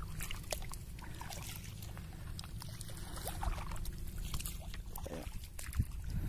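Footsteps sloshing and squelching through shallow water and mud on a tidal flat, with scattered small splashes over a low steady rumble.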